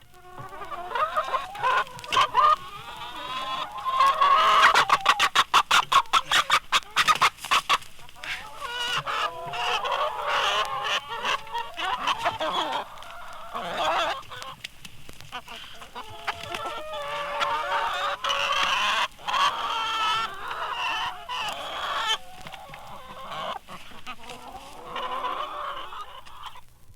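A flock of chickens clucking and cackling, many calls overlapping, with a burst of quick, sharp clucks about four seconds in.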